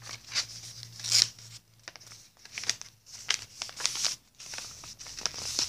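A sheet of paper rustling and crinkling as it is folded in half and creased by hand, in a run of irregular crisp scratches and rubs.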